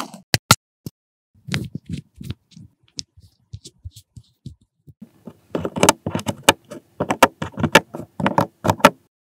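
Tiny plastic miniature toy pieces handled up close: a couple of sharp clicks at the start and soft taps in the middle, then a dense run of plastic clicks and rattles in the second half as tweezers pick the little cake cubes out of their plastic tray.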